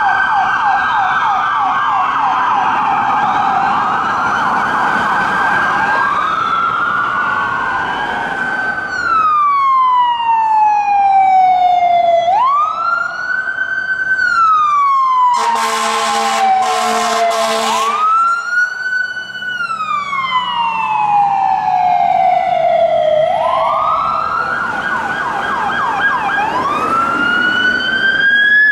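Electronic emergency-vehicle sirens on responding fire rescue units and sheriff's vehicles. A fast yelp overlaps a slow wail at first, then a single wail rises quickly and falls slowly every few seconds. About halfway a burst of horn blasts cuts in for a couple of seconds, and a yelp joins the wail again near the end.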